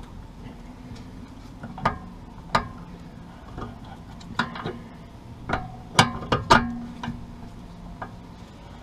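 Open-end spanners clinking against the Honda S2000's steering tie rod and its lock nut: irregular sharp metal clicks and clanks, most of them in the second half, as the lock nut is worked loose to adjust the front toe.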